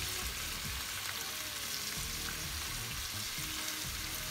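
Thin-sliced beef sizzling steadily in a pan, a continuous frying hiss as the meat browns with its juices cooked off.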